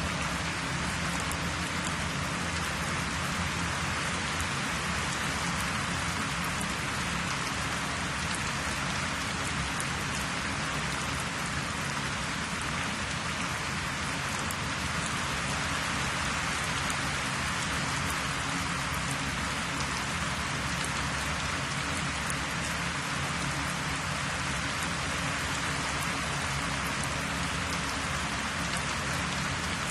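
Steady hiss of noise with a faint low hum beneath it.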